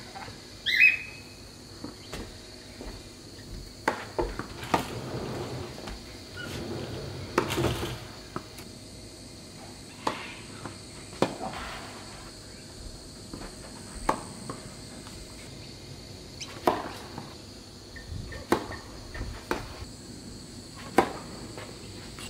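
Tennis balls struck by racquets in rallies: sharp pops every second or two, the loudest about a second in. A steady high insect drone runs underneath.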